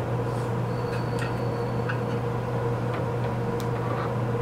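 Steady low hum with a few faint light clicks and taps as a small metal milling-machine saddle and table are handled and set down on the bench.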